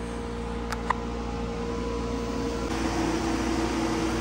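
Steady mechanical hum with several held tones, growing slightly louder, with two faint clicks about a second in.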